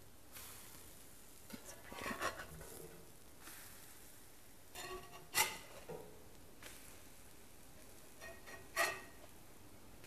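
Metal spatula scraping under pancakes on a griddle and flipping them back down, three short scrape-and-slap sounds about three seconds apart, the loudest about halfway through. A faint steady sizzle of the cooking batter runs underneath.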